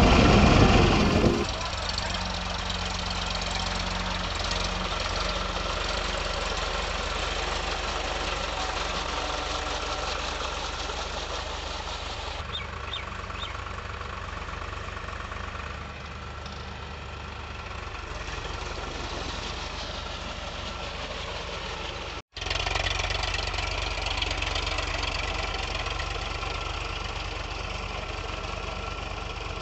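Powertrac Euro 47 tractor's diesel engine running steadily as it pulls a puddler and leveler through flooded paddy mud. The sound drops out for an instant about two-thirds of the way through, then returns a little louder.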